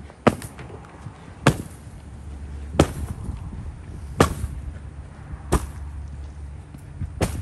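Sledgehammer striking a padded, upholstered couch: six sharp blows at a steady pace, about one every 1.3 seconds.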